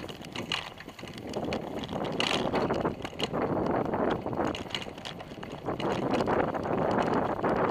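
Bicycle being ridden, heard from a camera mounted on the frame: tyre rumble and rattling of the bike, with scattered knocks and clicks, getting louder after about two seconds in.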